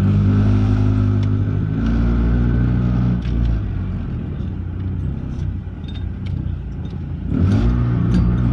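A car's engine running with a low, steady drone and a faint high whine over it, easing off about three seconds in and picking up again near the end: the horrible noises of a car with something wrong.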